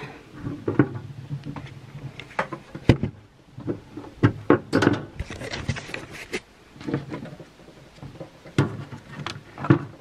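Handling noise from a wire suet cage feeder: irregular clicks, clacks and rattles as the cage is opened and moved on a wooden table, with knocks from a small plastic container against it.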